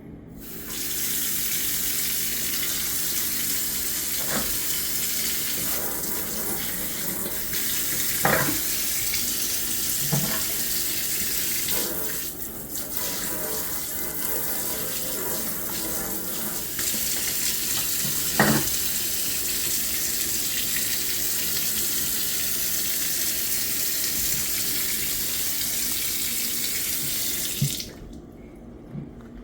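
Kitchen faucet running water into a sink, turned on about a second in and shut off near the end, with a few short knocks.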